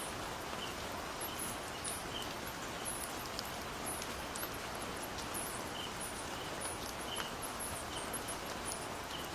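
Outdoor ambience: a steady hiss with many short, very high chirps at irregular intervals and a few fainter, lower chirps.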